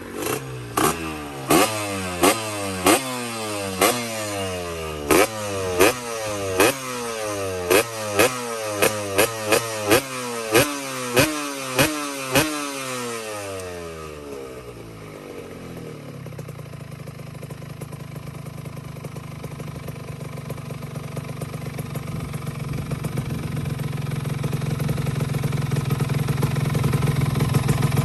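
Yamaha RXZ 135 two-stroke single-cylinder motorcycle engine revved in quick repeated throttle blips, each followed by falling revs and marked by a sharp crack. About halfway through it settles to a steady run that slowly grows louder.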